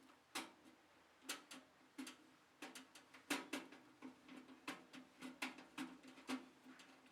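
A dozen or so light, irregular clicks and taps, some in quick pairs, from objects being handled, over a faint steady hum.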